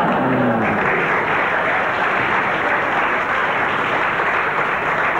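Studio audience applauding a punchline, a steady dense clapping.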